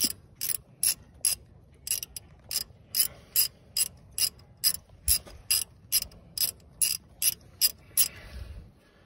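Ratchet wrench clicking in quick, even strokes, about two or three clicks a second, as a short brake caliper bolt is backed out. The clicking stops about eight seconds in, followed by a faint rustle.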